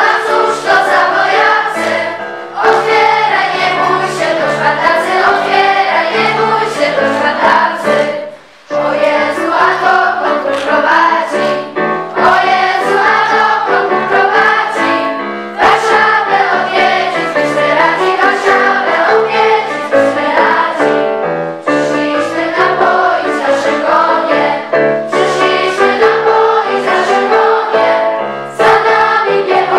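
A choir singing in sustained phrases, with a brief break about eight and a half seconds in.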